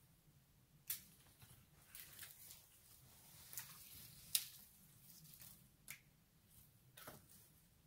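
Faint footsteps crunching in snow, with sharp snaps of small twigs, irregular and about one a second.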